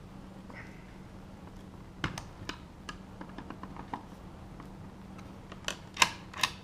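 Light clicks and taps of deadbolt lock parts being handled, scattered from about two seconds in, with three sharper clicks near the end, over a faint steady low hum.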